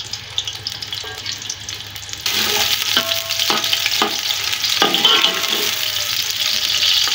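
Sliced onions sizzling as they fry in hot oil in a large metal pot. About two seconds in the sizzle suddenly grows louder, and a spoon stirring them strikes and clinks against the pot several times.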